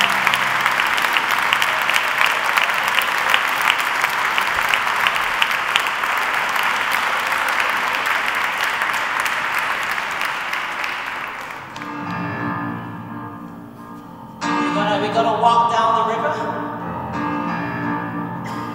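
Audience applauding with dense clapping that dies away after about eleven seconds. Music then starts: a keyboard playing, joined by a voice and a louder entry a couple of seconds later as the next song begins.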